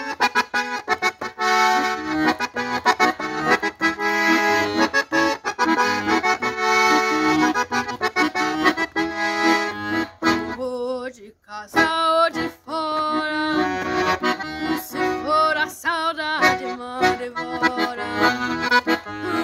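Piano accordion playing the instrumental introduction to a song, a melody over sustained chords, with a brief break about eleven seconds in.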